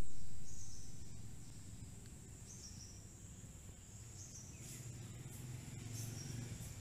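Outdoor ambience: a steady high-pitched insect buzz, with a few short high chirps and a low hum underneath.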